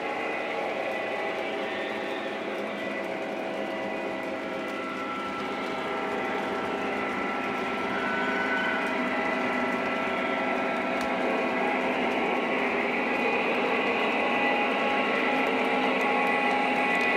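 Lionel O-gauge model trains running on three-rail track: a steady whir of small electric motors and metal wheels on the rails, growing louder toward the end as a diesel locomotive approaches.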